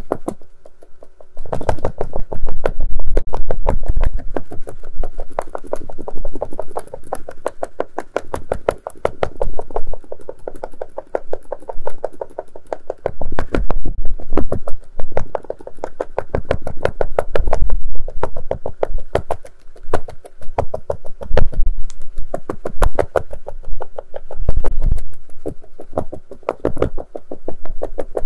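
Rapid tapping on a hard case, many taps a second, coming in uneven bursts that swell and ease.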